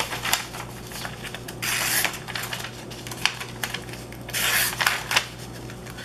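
A sheet of paper being sliced with the plain-edge blade of a CRKT No Time Off folding knife as a sharpness test. Two drawn-out hissing cuts come about two seconds in and again about four and a half seconds in, with paper crackle and rustle between them.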